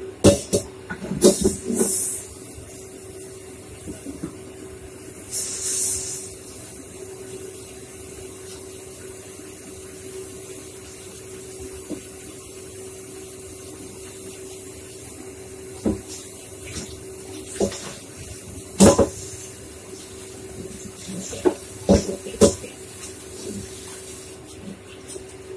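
Kitchen sounds over a steady hum: scattered clinks and knocks of pots and dishes, with two short bursts of running tap water in the first few seconds.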